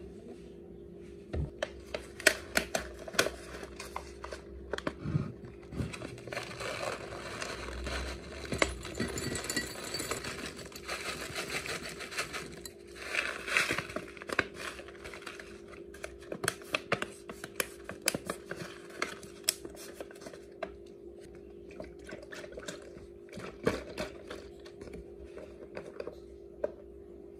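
Plastic pouch rustling and dry toasted-oat muesli rattling into a glass bowl, with many small clicks and taps; the pouring is densest through the middle. A faint steady hum runs underneath.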